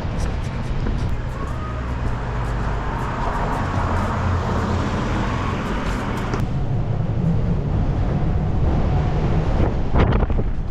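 Strong wind rumbling on the microphone, mixed with road traffic; the brighter part of the noise drops away suddenly about six seconds in.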